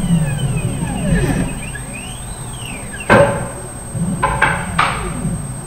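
Stepper motors of a CNC gantry machine whining as they drive the tool head, the pitch sliding up and down as each move speeds up and slows. A sharp click about three seconds in, the loudest sound, then three quicker knocks a second later.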